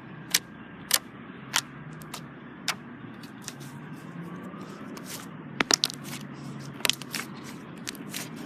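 Slime being played with: a string of sharp, irregular pops and clicks, with a quick cluster of them about two thirds of the way through, over a steady low hiss.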